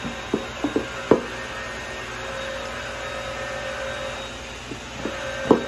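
Spin mop head spinning in its bucket's wringer basket, driven by pressing the handle: a steady whir, with a few sharp clicks from the handle mechanism near the start and once near the end.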